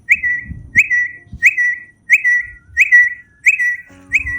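A high whistle-like note repeated evenly, about one and a half times a second. Each note starts with a quick upward flick and then holds its pitch.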